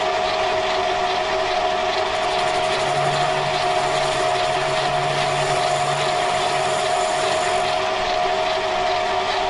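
TV-4 benchtop training lathe running steadily, its gear train giving a constant whining tone with a fine mechanical rattle. A lower hum joins in for a few seconds in the middle.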